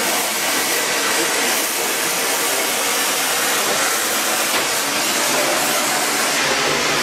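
Colmonoy powder-brazing torch flame running with a steady rushing hiss.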